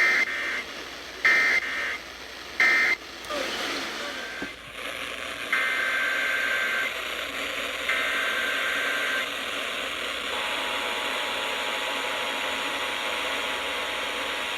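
Emergency Alert System data bursts over a weather radio: several short, harsh two-pitch bursts in the first three seconds, then two longer bursts over steady radio static. About ten seconds in, a steady two-tone attention signal starts and holds, announcing the next warning.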